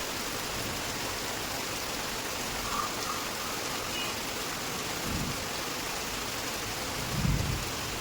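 Heavy rain falling steadily, with two dull low thuds about five and seven seconds in, the second the louder.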